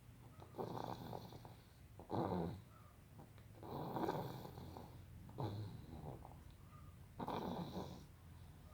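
Snoring in sleep: rough, rasping breaths that swell and fade about every one and a half to two seconds.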